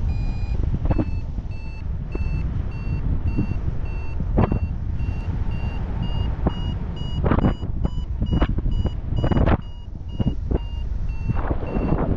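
Paragliding variometer beeping in short, evenly spaced tones, about two a second, rising slowly in pitch and quickening until a little past the middle, then easing down: the climb tone, the sign of the wing rising in lift. Wind rushes and gusts over the microphone underneath.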